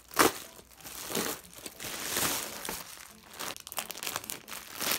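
Plastic packaging crinkling and tearing as a plastic bubble mailer is cut and ripped open and a cellophane-wrapped item is pulled from its plastic bag. A sharp, loud crackle comes just after the start, then bursts of rustling.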